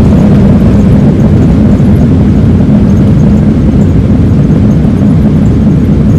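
Jet airliner rolling on the runway after landing, heard from inside the cabin: a loud, steady, deep rumble.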